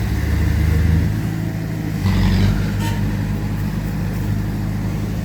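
Heavy diesel engine of an earthmoving machine running steadily, with a step up in load about two seconds in and a brief sharp click shortly after.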